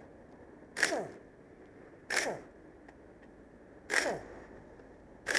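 Hand tool working on an air-conditioning compressor's fittings: four short rasping strokes about a second and a half apart, each falling in pitch.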